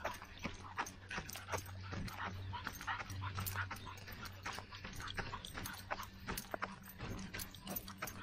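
A runner's footfalls on a dirt trail: a quick, fairly even run of short strikes.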